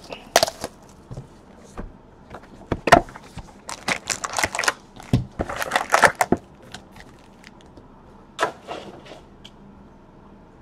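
Trading-card hobby box being opened and its shiny wrapped packs pulled out and set down on a desk mat: an irregular string of crinkles, scrapes and taps of cardboard and wrappers, busiest in the middle.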